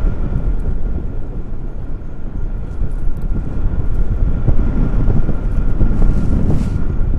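Wind buffeting the microphone in a heavy, gusting rumble that eases about two seconds in and builds again, with a faint steady high tone underneath.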